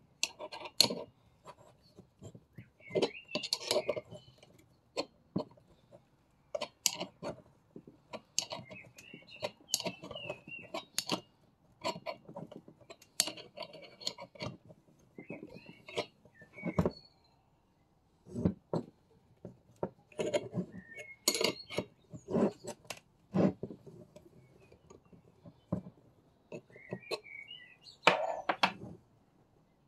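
Metal hand tools and small engine parts clinking and knocking at irregular intervals while a Stihl FS 38 trimmer is taken apart. Birds chirp now and then in the background.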